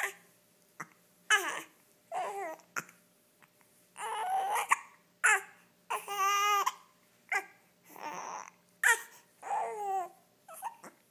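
An infant makes short cooing and fussy whimpering sounds, roughly one a second, several sliding down in pitch. A few brief sharp hiccups fall between them.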